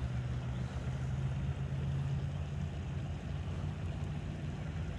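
Steady low engine drone with no clear change.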